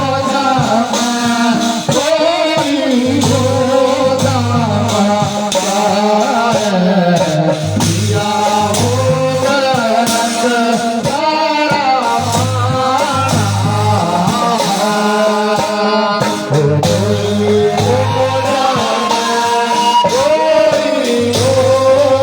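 Himachali folk song: a voice singing a melodic line over instrumental accompaniment with a steady low beat.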